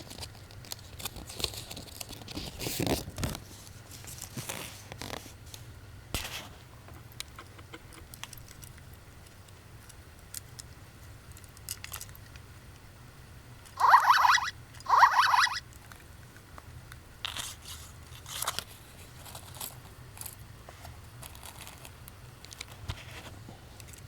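Small plastic toys being handled, with scattered clicks and rustles. About two-thirds of the way through, a small gashapon sound toy's tiny speaker plays two short sounds back to back, each under a second.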